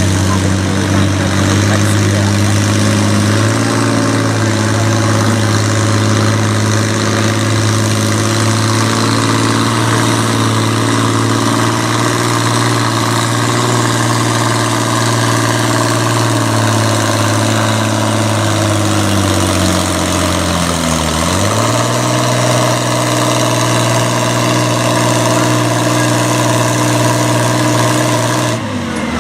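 Farm-class pulling tractor's engine running hard at a steady high pitch under load while pulling the sled. About two-thirds through, the pitch sags and briefly dips low as the sled bogs the engine down in the RPMs, then it recovers and holds steady before dropping off near the end.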